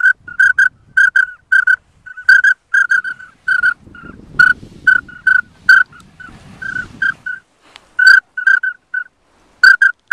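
A pintail duck whistle call blown in short, sharp toots, in quick groups of two and three, to bring circling pintails in. For a few seconds in the middle a soft low rumbling noise sits under the whistles.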